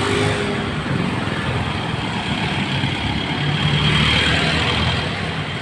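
Motor vehicle engine running close by amid road traffic, with the engine sound swelling briefly about four seconds in.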